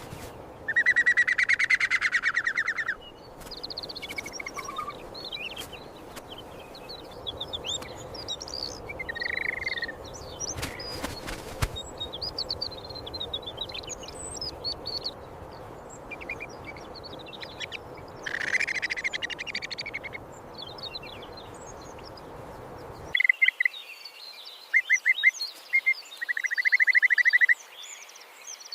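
Birds calling: a loud, rapid rattling call near the start, scattered short chirps and whistles, and another rattling call about two-thirds of the way in. After a sudden change in the background near the end come a few short rattles, then a longer one.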